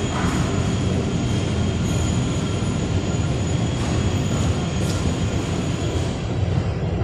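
CNC spring coiling machine running as it coils wire: a steady low mechanical hum and rumble with a faint high whine and an occasional click.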